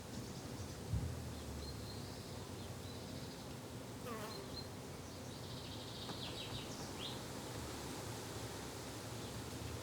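Flying insects buzzing steadily in a summer garden, a low droning hum, with a few short, high bird chirps scattered through and a single low thump about a second in.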